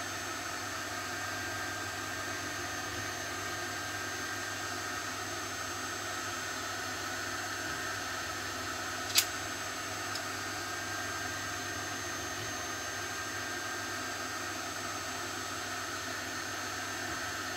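Steady whirring background noise with faint steady tones under it, and one sharp click about halfway through.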